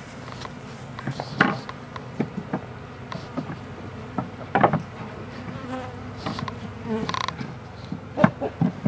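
Swarm of honeybees from a newly installed package buzzing in a steady drone, with a few short wooden knocks as the pine top bars of a Kenyan top-bar hive are set back in place.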